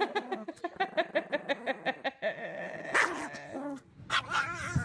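Chihuahua growl-barking in a rapid string of short yaps, several a second, with a louder bark about three seconds in.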